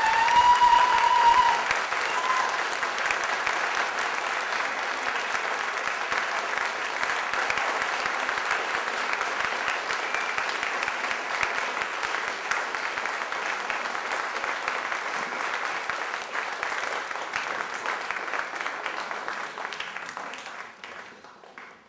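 Audience applauding, a dense clapping that runs on without a break. A held high call rises slightly over it in the first second or so, and the applause fades out over the last couple of seconds.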